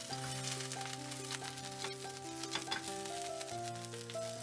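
Battered cockle and vegetable pancakes sizzling and crackling in hot vegetable oil in a frying pan, with background music of held notes over it.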